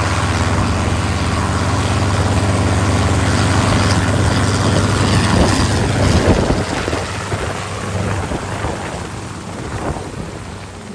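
Enstrom 280FX piston-engine helicopter in a low hover, its rotor beat and engine loud and steady, passing closest about six seconds in. The sound then fades steadily as it climbs away.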